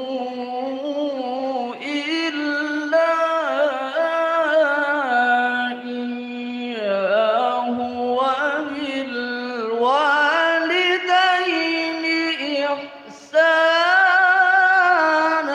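A male Quran reciter's melodic solo recitation (tilawah) through a microphone, drawing out long ornamented vocal lines with wavering, sliding pitch. It breaks off briefly about 13 seconds in and resumes louder.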